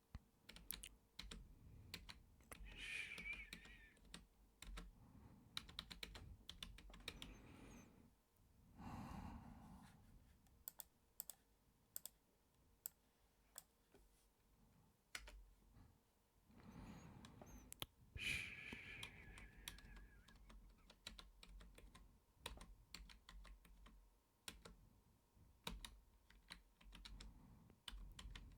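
Soft, irregular typing on a computer keyboard, keystrokes clicking in quick runs with short pauses between.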